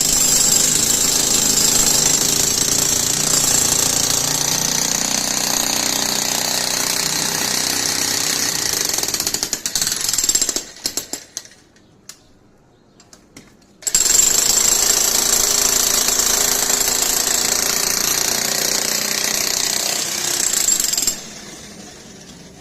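Loud, continuous noise of road-work machinery. It stops about ten seconds in, gives a few short starts, falls quiet, then runs again from about fourteen seconds in and drops off near the end.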